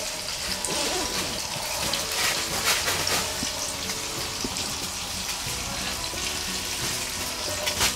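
Fish pieces frying in hot oil in a pan on a portable propane stove: a steady sizzle with a few sharp pops.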